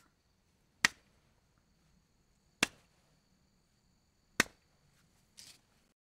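Three sharp single slaps of a hand on a knee, spaced a little under two seconds apart, then a faint brief rustle near the end.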